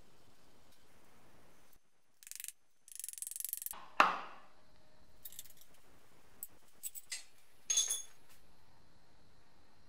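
A soft-faced mallet strikes the crankshaft timing gear once, hard, about four seconds in, tapping the gear onto the nose of the BMW M20B25 crankshaft; the blow is the loudest sound and rings briefly. Before it come short rapid rattling bursts, and afterwards a few light metallic clicks and clinks of parts and tools.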